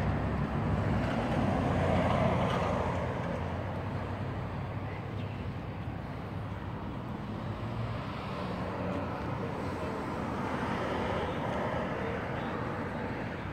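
1995 Chevrolet Impala SS's 5.7-litre LT1 V8 idling steadily with a low rumble, louder in the first few seconds.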